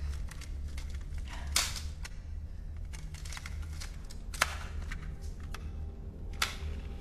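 Clicks from a small handheld cassette player being handled, with three sharper clicks about two seconds apart among smaller ones, over a steady low hum.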